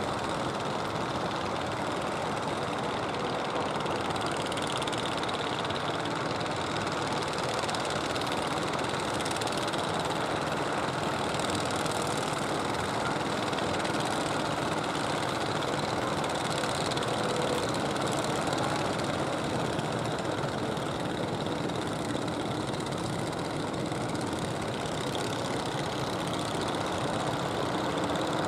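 Engines of several motorised outrigger fishing boats running steadily as the boats pass.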